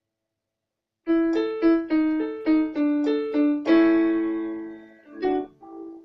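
Digital piano playing the closing bars: starting about a second in, a quick run of about nine notes, then a held chord that slowly fades, and two short chords near the end.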